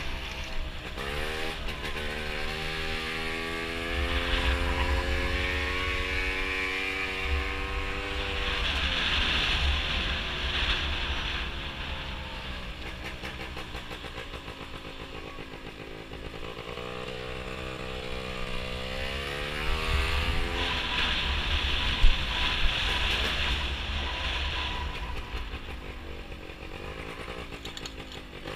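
Gilera Runner two-stroke scooter engine with a Malossi 172 big-bore kit, ridden on the road. It revs up, holds a steady pitch, then drops back, several times over, under a heavy low wind rumble on the microphone. A single sharp knock comes about two-thirds of the way through.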